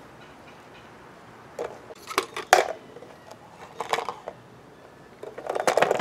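Clicks, knocks and light clattering as a wire-mesh basket, a funnel and a plate are handled and set together on a wooden table, in three short bursts with the sharpest click about two and a half seconds in.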